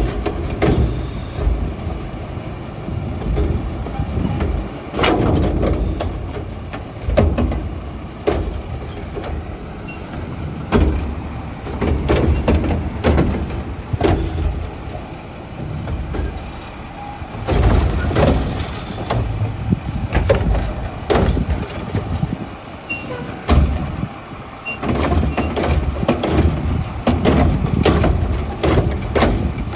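Mack LR front-loader garbage truck working a Curotto Can: the engine revs up and down again and again to drive the hydraulics as the automated arm grabs and handles trash carts, with repeated metal clanks and bangs.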